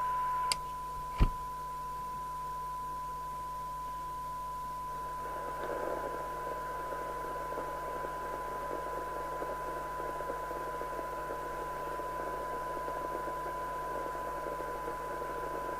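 Rotel RVC240 FM CB radio's receiver playing a steady test tone through hiss while a weak test signal is fed in for a sensitivity measurement. Two short clicks come in the first second and a half, and the hiss grows louder about five seconds in.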